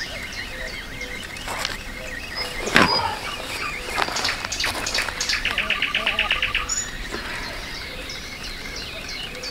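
Wild birds singing, with repeated short high chirps and a fast trill about six seconds in. A few sharp clicks fall in the first half, the loudest a knock about three seconds in.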